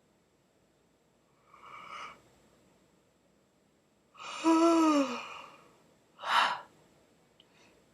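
A person yawning: a breathy intake, then about four seconds in a long voiced yawn whose pitch falls, followed by a short sharp breath.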